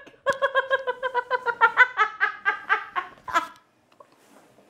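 A woman laughing hard: a long, rapid run of high-pitched 'ha-ha-ha' pulses, about six a second, that breaks off about three and a half seconds in.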